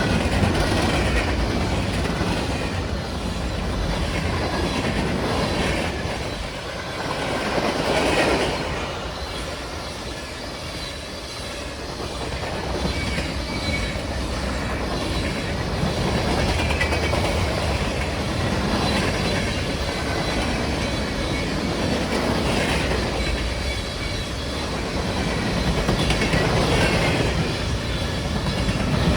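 Norfolk Southern manifest freight train passing at about 58 mph: a steady rumble and clatter of its cars' wheels on the rails, with faint high wheel squeal at times.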